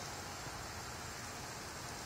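Steady outdoor hiss with a faint low wind rumble on the microphone.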